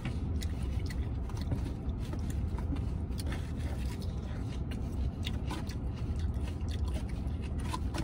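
A fork scraping and clicking against a takeout food bowl, with chewing, in short scattered sounds over a steady low rumble.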